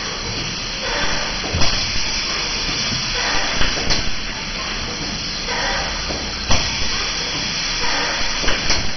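Pneumatic cylinder of a door durability tester cycling a cabinet door open and shut: compressed air hisses with each stroke, and sharp knocks come about every two to three seconds.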